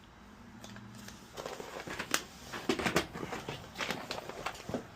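Irregular small clicks and rattles of small parts being handled and sorted through while searching for a replacement relay, starting about a second and a half in.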